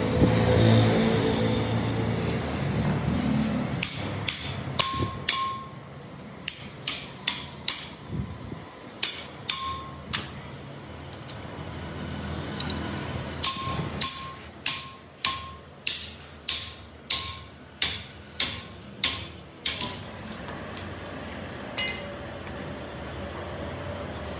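Hammer blows on metal, a long series of sharp strikes, each ringing briefly. They come in uneven runs at first, then settle to about two a second. A low rumble fades out over the first few seconds.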